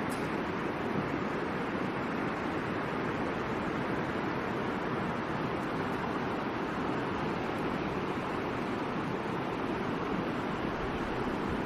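Steady rushing of the Middle Fork Boise River, a continuous even wash of flowing water.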